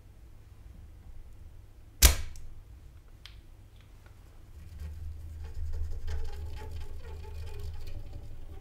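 A single sharp knock about two seconds in, followed by two faint clicks, then from about halfway a cotton swab scrubbing the solder side of a circuit board with an irregular scratchy rustle.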